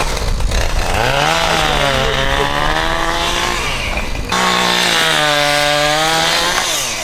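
A two-stroke chainsaw is run at full throttle in two long pulls, its pitch sagging and breaking off midway before climbing again, then dropping back near the end: it is cutting into a standing dead tree for firewood.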